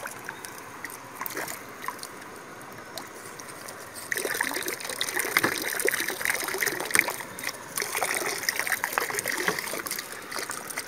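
Water pouring out of a plastic PET-bottle fish trap and splashing into a stream as the trap is drained. The pouring starts about four seconds in and runs on.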